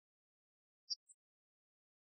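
Near silence, broken about a second in by two very short, high-pitched blips in quick succession.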